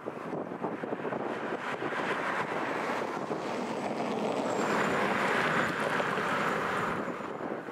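Boeing 787 jet engines rushing past, swelling to a peak about five to six seconds in and easing off near the end, with a faint high whine that dips slightly in pitch as it passes. Wind buffets the microphone throughout.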